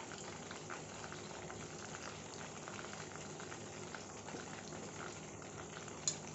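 Minced-meat kababs frying in hot oil in a pan: a steady sizzle and crackle of bubbling oil. A single sharp click comes near the end.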